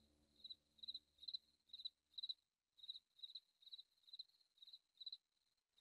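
Cricket chirping steadily, a short high trilled chirp about twice a second. Under it, low sustained background tones fade out in the first two seconds.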